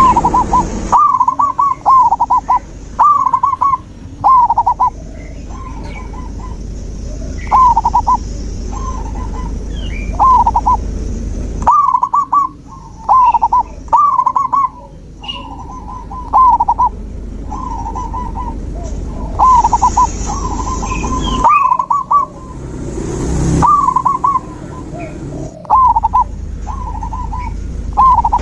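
Zebra dove (perkutut) cooing over and over in short, loud, rolling phrases, with faint chirps of other small birds behind it.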